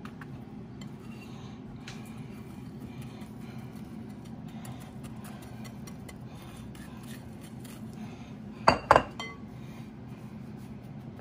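Light scraping and ticking of a silicone spatula working cracker crumbs out of a glass bowl into a glass baking dish. About nine seconds in come two sharp, ringing clinks of glass in quick succession, the loudest sounds here. A steady low hum runs underneath.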